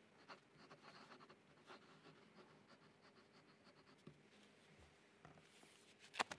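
Faint scratching of a pen writing a signature on paper, picked up by the desk microphones. A sharp click near the end is the loudest sound.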